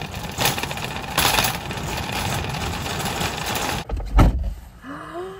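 Metal shopping cart rattling as it is pushed over asphalt, a dense clattering noise that cuts off sharply about four seconds in. A single loud low thump follows.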